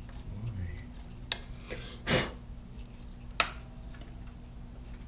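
Metal tools and bolts being handled at the front of an engine: a few sharp clicks, one louder about three and a half seconds in, and a short scrape about two seconds in, over a faint steady low hum.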